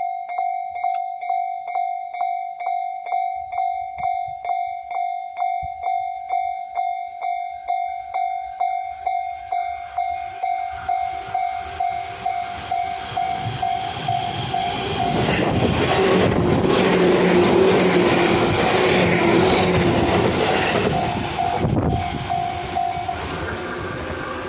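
Japanese railway level-crossing warning bell sounding its repeated electronic 'kan-kan' tone, about two strikes a second. A train approaches from about 13 seconds in, passes loudly between about 15 and 22 seconds, and fades. The bell stops shortly before the end.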